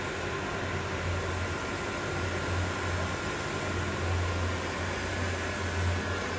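Maho MH-600 milling machine's power feed running, a steady low hum and whir as the slide traverses after the feed speed has been raised.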